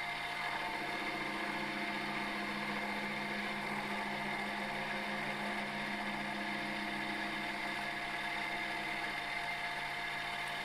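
Milling machine running steadily, its home-made form-relieved gear cutter cutting teeth into a steel gear blank: an even mechanical hum with a faint regular pulse.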